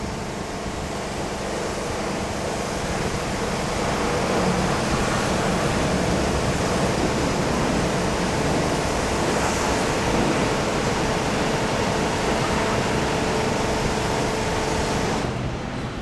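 Automatic car washing machine running: a steady rush of water spray over a faint motor hum, easing off near the end.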